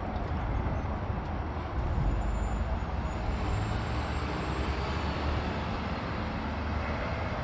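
Steady rumble of vehicles, even in level throughout, with no horn sounding.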